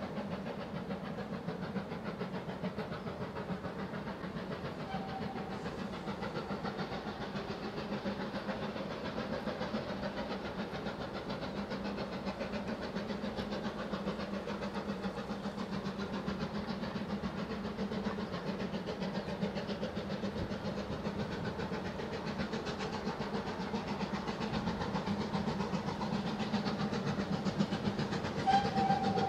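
GWR Manor class 4-6-0 steam locomotive No 7822 'Foxcote Manor' working a passenger train as it approaches, its exhaust beating in a fast steady rhythm and growing a little louder. A steady whistle sounds near the end.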